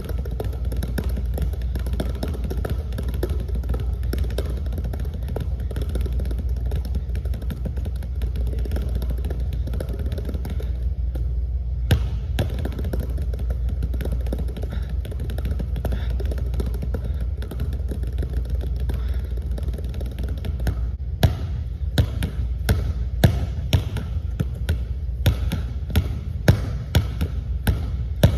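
Basketball dribbled rapidly and low against a hardwood gym floor in quick tap dribbles, the bounces running together in a fast patter over a steady low hum. About 21 seconds in, the rhythm changes to slower, harder single bounces, about two a second, as the dribble changes to in-and-out scissors crossovers.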